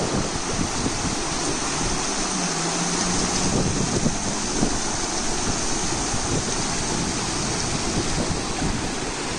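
River rapids rushing over and around rocks: a steady, fairly loud rush of fast-flowing water.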